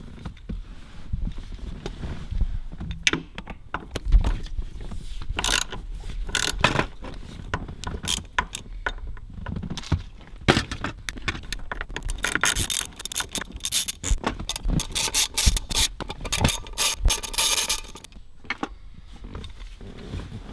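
Ratchet wrench clicking as it backs out the T40 Torx bolts holding a car's factory shifter, in uneven runs of clicks with a long fast run in the latter part.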